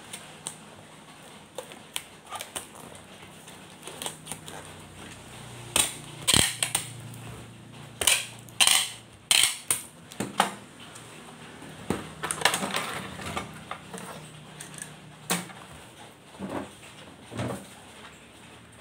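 Brown wrapping paper being folded and crinkled around a parcel, and packing tape pulled off a handheld tape dispenser and pressed down, with several rasping tape pulls among scattered taps and crackles.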